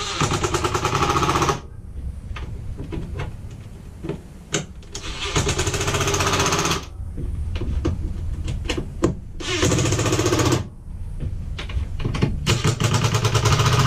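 Cordless impact driver hammering in four bursts of about one to two seconds each, with short pauses between, as it tightens the bolts that hold a rooftop RV air conditioner down. The bolts had been loose enough to turn easily with a wrench, letting rain leak in past the unit.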